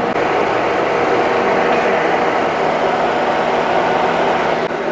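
Steady mechanical hum and hiss of machinery running in a machine shop, with a faint constant drone.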